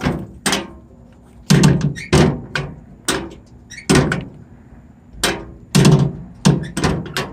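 Steel compartment door on an old International Harvester R-190 fire truck body being slammed shut again and again, about ten loud hollow metal bangs, some in quick pairs, each with a short ring; the door is not staying latched.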